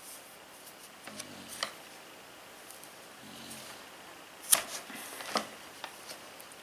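Paracord ends being cut: a few sharp snips, the loudest about four and a half seconds in.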